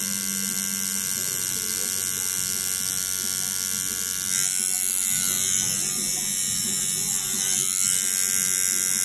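Tattoo machine buzzing steadily as an 18 round liner needle draws outlines into skin, its tone getting a little brighter about four and a half seconds in.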